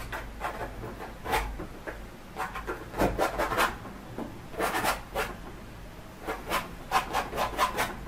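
Palette knife scraping and dabbing oil paint onto canvas in short strokes, in quick runs of several strokes with brief pauses between.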